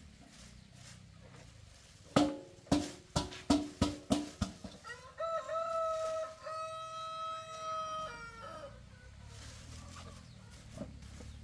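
A rooster crowing once, a long call held for about three seconds, starting about five seconds in. Just before it, about eight sharp knocks come in quick succession over two seconds, the loudest sounds here.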